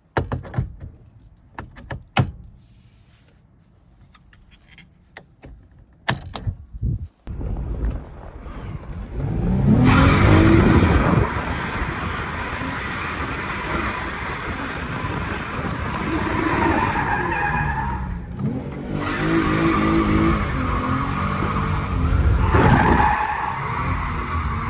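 A few scattered clicks and knocks, then from about a third of the way in a car engine revs hard while the tyres squeal continuously, as in drifting. The revs climb sharply twice, about ten seconds in and again near the end.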